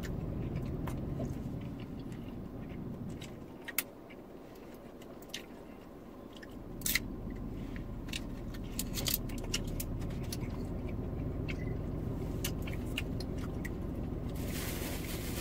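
Takoyaki being eaten: chewing and scattered small clicks and taps from handling the food and its container, over a steady low hum of the car cabin. Near the end a hand passes close to the microphone with a rustling noise.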